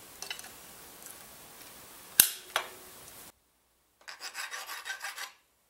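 Bolt cutters snap through once, a sharp crack with a smaller click just after. From about four seconds in, a hacksaw cuts a small part in rapid, even scraping strokes.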